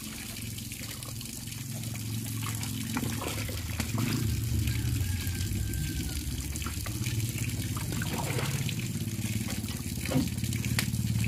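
Hot water sloshing and trickling in a large pot as whole chickens are stirred and dunked in it with a wooden stick, scalding them to loosen the feathers for plucking. A few short clicks or knocks are scattered through it.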